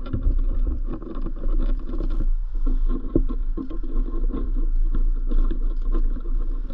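Footsteps on a dirt cliff path with the rustle and knock of carried gear, over a steady low rumble of wind on the body-worn microphone.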